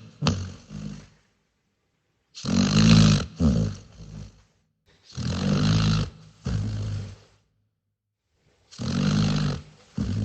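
A dog snoring in a slow, even rhythm, about one snore every three seconds. Each snore is a long, loud breath followed at once by a shorter, softer one.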